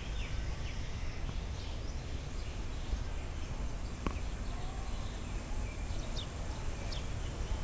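Outdoor park ambience: scattered short, high bird chirps over a steady low rumble, with a single click about four seconds in.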